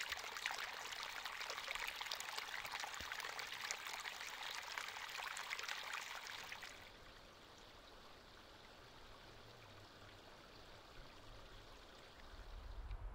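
Shallow creek water trickling and babbling at the bank, a dense hiss full of small splashes. About seven seconds in it drops away to a much quieter faint hiss, and a low rumble comes in near the end.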